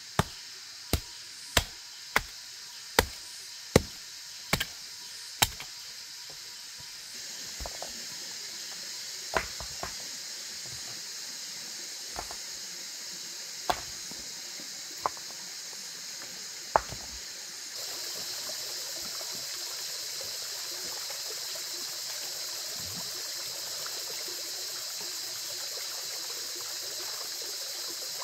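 A run of sharp knocks, about one every 0.7 seconds for the first five seconds, then a few scattered knocks. Under them is a steady high hiss that gets louder about seven seconds in and again about eighteen seconds in.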